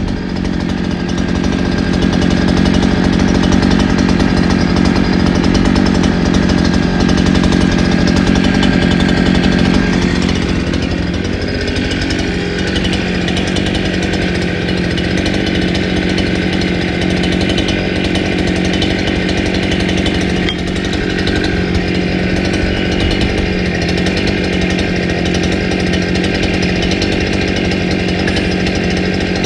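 Petrol brush cutter engine running steadily at high speed with a nylon trimmer head fitted, easing slightly about ten seconds in. It runs with a vibration and noise that the demonstrator takes as the sign of an attachment not joined properly to the shaft, which will damage the shaft if it is run like this.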